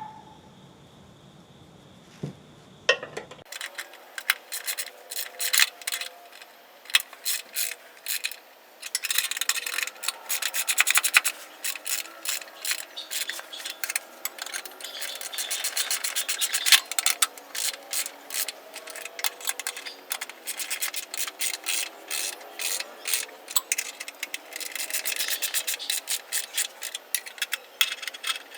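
Ratchet wrench clicking in rapid runs as the bolts holding a mower-deck stripe kit are tightened, after a quieter first few seconds.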